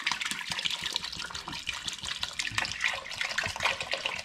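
Water pouring in a steady stream from a plastic jerry can into a stainless steel stockpot already holding liquid, splashing and gurgling as the pot fills to cover pork trotters for braising.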